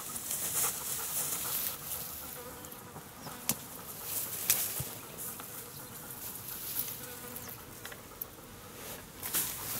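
A flying insect buzzing, with a thin steady hum and a few short sharp clicks.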